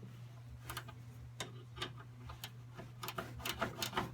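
Metal clicks of a 10 mm wrench working the small carburetor fasteners on a Honda HS621 snow blower, snugging them up. The clicks are sparse at first and come quicker near the end. A low steady hum sits under them.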